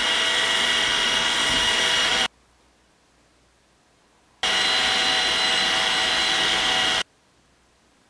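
Robot vacuum cleaner motor running in two bursts of about two and a half seconds each, a steady whirring whine that switches on and off abruptly.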